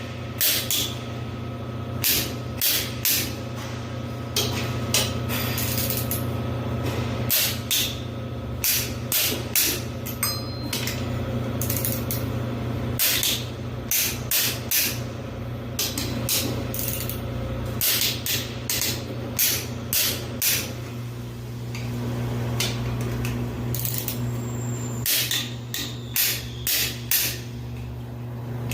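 Hand ratchet wrench clicking in short runs of several strokes, with pauses between runs, as bolts are turned during an engine overhaul. A steady low hum sits underneath.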